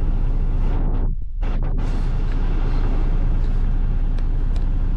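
Semi-truck engine idling: a steady, loud rumble with a strong low hum, dipping briefly about a second in.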